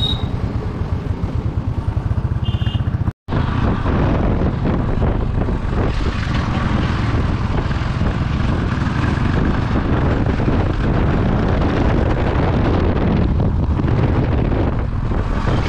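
Motor vehicle running on the move, a steady low rumble with wind buffeting the microphone. The sound cuts out for an instant about three seconds in, then carries on unchanged.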